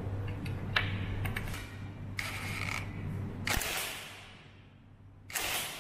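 Cordless impact wrench run in short bursts, tightening the bolts that hold the ceramic plunger tubes of a high-pressure plunger pump, after a few light knocks of parts being set in place.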